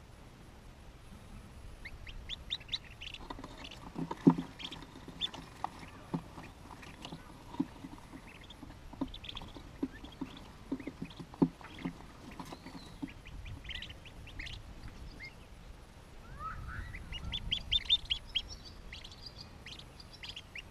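Newly hatched hooded merganser ducklings peeping in short high runs, busiest near the end. Low knocks and scuffs, the loudest about four and eleven seconds in, come from the ducklings moving about against the wooden nest box and eggshells.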